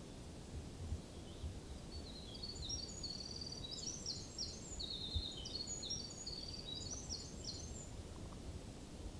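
A songbird singing one long, rapid, high-pitched song of jumbled twitters and trills, starting about two seconds in and lasting some six seconds, over a steady low rumble.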